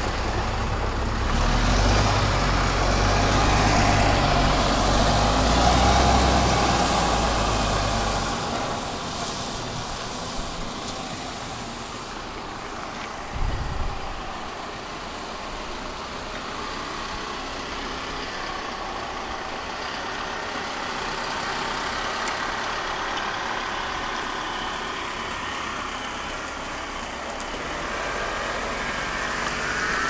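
Bus engine running with a heavy low rumble for about the first eight seconds, then easing into quieter, steady road noise. There is a brief low thump about 13 seconds in.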